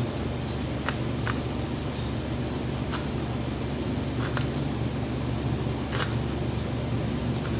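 Steady low background hum with a haze of noise, broken by four light clicks, the first near one second in and the last at about six seconds.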